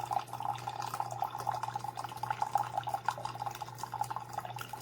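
CHULUX single-serve coffee maker brewing: hot coffee streams and trickles into a cup over a steady low hum from the machine.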